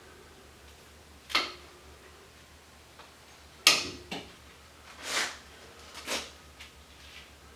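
Fine copper wire being pulled and unwound off a small coil from a dismantled arc fault breaker: a handful of short, sharp scrapes and clicks about once a second, the loudest about halfway through.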